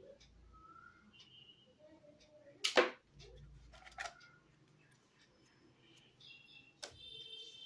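Unboxing handling noises from a phone box and its packaging: a short, loud swish about three seconds in, a smaller one a second later, and faint clicks and taps between them.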